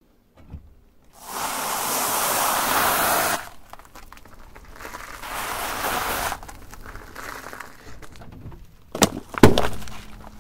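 Car tyre crushing nests of dried vermicelli pasta on asphalt: a dense crackling crunch for about two seconds, then a second, quieter crunch. Near the end come two sharp cracks about half a second apart, the loudest sounds, as the tyre crushes a small packaged object.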